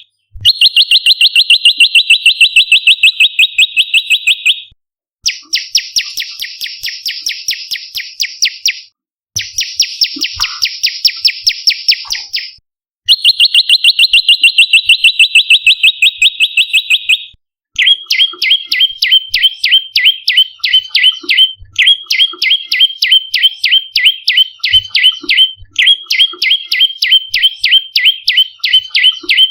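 Prenjak lumut calling in rapid, evenly spaced trains of sharp, high chirps, about seven to ten a second. The trains come in bouts of about four seconds with brief gaps between them, and the note pattern changes from bout to bout.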